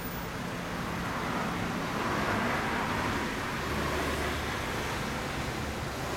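Suzuki GSX1100S Katana's air-cooled inline-four running steadily through a PEGASUS hand-bent 4-into-1 steel exhaust with a straight-through aluminium silencer, heard close to the silencer.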